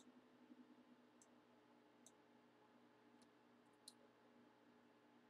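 Near silence: a faint steady hum with a few faint computer mouse clicks spread across it, the loudest about four seconds in.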